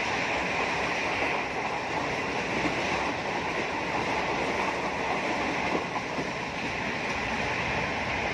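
Passenger train running at speed: a steady rushing noise of wheels on rail and wind.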